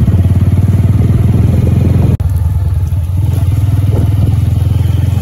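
Honda motorcycle engine running steadily as the bike is ridden, a loud low pulsing drone that breaks off for an instant about two seconds in.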